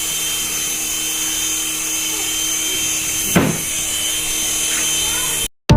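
A small electric motor whirring steadily, with a single click about three and a half seconds in. It cuts off abruptly near the end.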